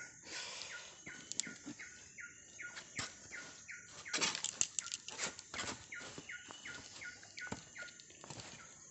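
Footsteps crossing a footbridge of bundled bamboo poles and dry leaf litter: scattered knocks and crunches, loudest about four to six seconds in. Behind them a high, short falling chirp repeats about three times a second.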